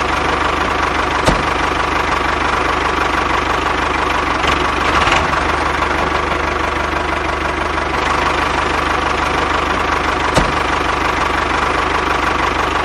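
Steady engine running with a fast, even knocking pulse, like a diesel tractor idling, as the miniature model tractor drives; a couple of short sharp clicks, about a second in and again near the ten-second mark.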